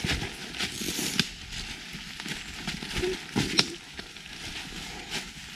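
Footsteps crunching through dry fallen leaves and twigs, an irregular run of crackles and snaps.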